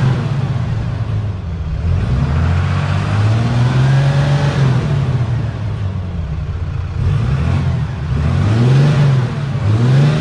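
A 2019 Ram 2500's 6.7-litre Cummins inline-six turbodiesel is heard at the exhaust, revved up and back down to idle several times. The longest rev comes about three to four seconds in and two short ones come near the end. For a diesel the note is quiet, with no clatter.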